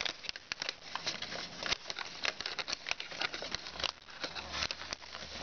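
Origami foil paper crinkling and crackling in a rapid, irregular patter of small clicks as fingers pinch and crease its pleats into mountain folds.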